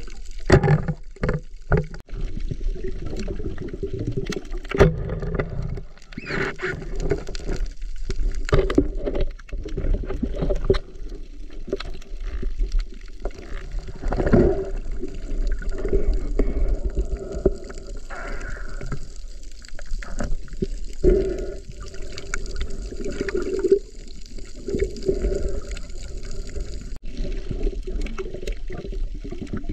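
Water sloshing and gurgling around a swimming diver, dull and muffled as picked up by a camera in a waterproof housing, with scattered sharp knocks and clicks.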